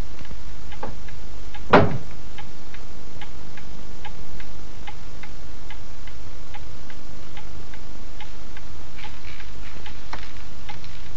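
A clock ticking steadily, about two ticks a second, with a single louder knock about two seconds in.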